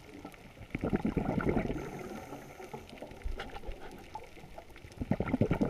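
Underwater bubbling from a scuba diver's exhaled breath, heard through the camera housing, in two bursts: about a second in and again near the end.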